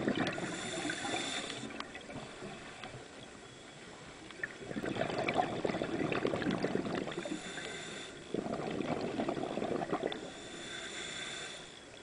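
Scuba regulator breathing underwater: each breath is drawn in with a high hiss, then let out as a bubbling, crackling rumble of exhaust bubbles, about three breaths in all.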